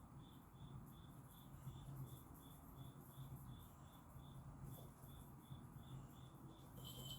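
Near silence: faint short high chirps repeating evenly, about three a second, over a low steady hum.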